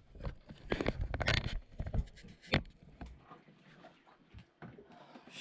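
Handling noises from work on a removed bilge pump by hand: irregular knocks, clicks and rustles, busiest in the first three seconds, with one sharp click about two and a half seconds in.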